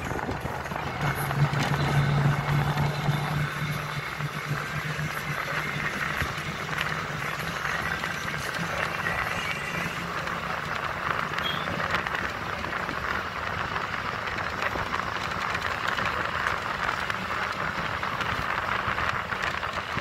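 Inside a bus moving down a mountain road: a steady low engine hum under continuous tyre and road noise. The engine hum is strongest in the first few seconds, then sinks under the road noise.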